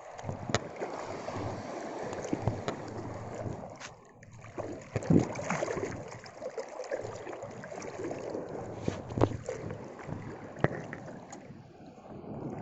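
Breaking sea waves surging and sloshing in shallow water around a wading angler, with wind buffeting the microphone. Several sharp knocks or splashes cut through the wash.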